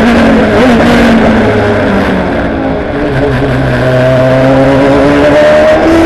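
Ferrari GT race car engine heard onboard: the revs drop in a few steps through downshifts over the first three seconds, then climb steadily under acceleration.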